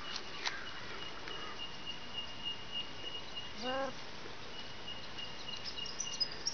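A hen gives one short cluck about halfway through, over a steady high-pitched insect drone that breaks off now and then.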